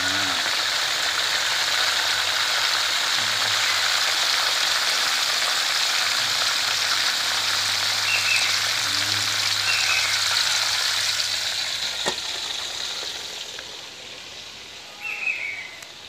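Pieces of boiled pork belly deep-frying in hot oil in a wok: a steady, dense sizzle that fades away near the end.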